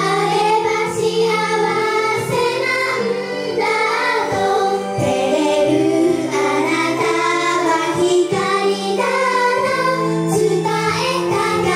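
A group of young girls singing a Japanese pop song in unison over backing music with a steady bass line.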